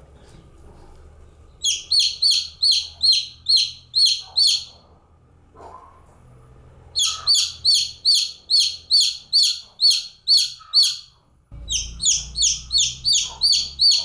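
Domestic chicken chick peeping: three bouts of loud, rapid, high-pitched peeps, about three a second, with short pauses between bouts. This is the persistent calling of a chick on its own.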